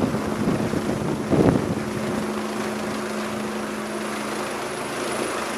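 Rescue helicopter flying close overhead: a steady rotor and engine noise with a low hum, and two brief thumps in the first second and a half.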